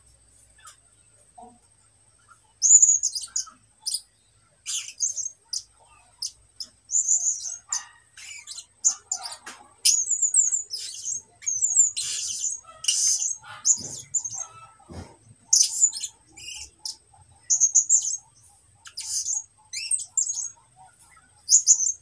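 A one-year-old caged songbird singing in short, high chirping phrases with pauses between them, the halting song of a young bird still learning. It begins after a couple of seconds of quiet.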